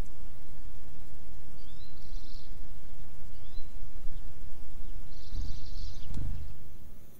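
Wild birds giving a few short, high chirps, some with a quick rising note, over a steady low outdoor rumble; the sound fades out near the end.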